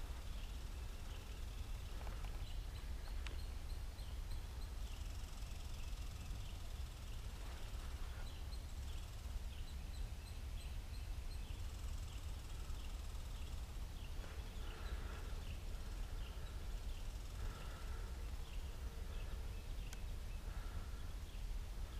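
Winter woodland ambience: a steady low rumble with a small bird chirping over and over, short high notes about every half second. Other, lower calls join in during the second half.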